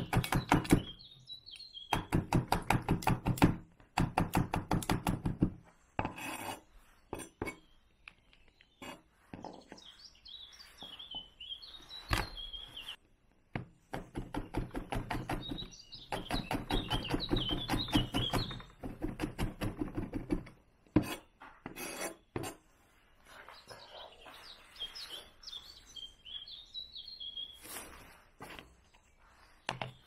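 Kitchen knife chopping chili peppers and garlic on a plastic cutting board, in several bursts of fast strokes, the longest run about halfway through. Birds chirp in the background.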